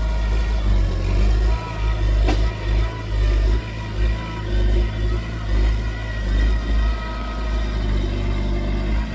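Diesel engine of heavy earthmoving machinery running under working load, its low rumble swelling and easing in regular pulses. One sharp knock sounds a couple of seconds in.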